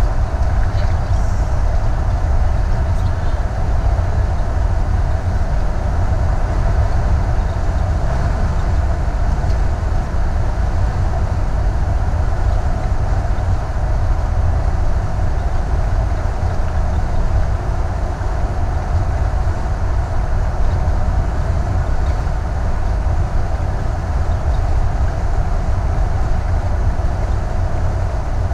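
Steady road and drivetrain noise heard inside the cab of a Thor Vegas Class A motorhome cruising at highway speed: a deep, even rumble with a hum above it.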